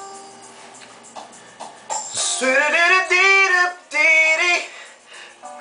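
A man singing high, wavering phrases along to a recorded R&B backing track. The track plays softly at first, and his voice comes in about two seconds in, in two held phrases.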